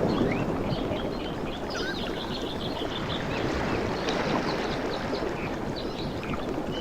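Surf on a tropical beach: a wave's wash easing off at the start into a steady low rush of water, with many short high chirps scattered over it.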